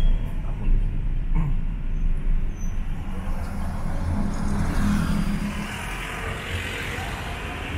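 Street traffic: motor vehicles running with a steady low rumble, and a hiss that swells about halfway through as a vehicle passes.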